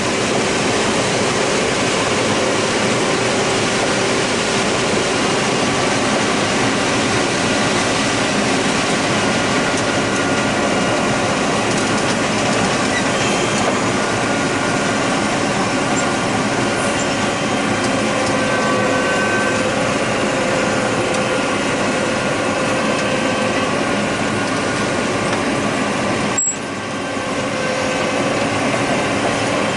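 John Deere 9600 combine running: a steady, loud blend of engine and machinery noise with several held tones, briefly dipping in level near the end.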